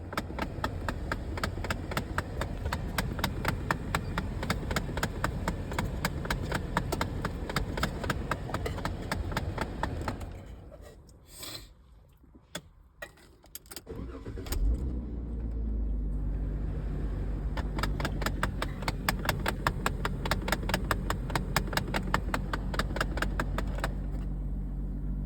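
2014 Dodge ProMaster van engine with a rapid, even ticking, several ticks a second: the weird noise the owner is showing. The ticking dies away about ten seconds in; the engine starts about fifteen seconds in and settles into an idle, and the ticking comes back with it.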